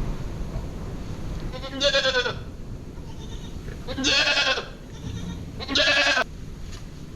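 Goat bleating three times, each a wavering call of about half a second, roughly two seconds apart.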